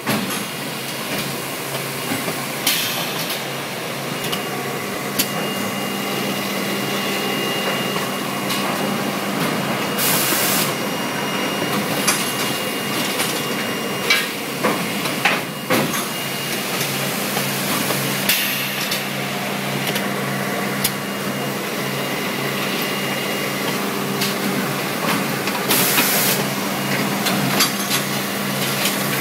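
Verville wood shavings bagging machine running: a steady mechanical hum with frequent clanks and knocks from its mechanism, and a few bursts of hiss lasting about a second each.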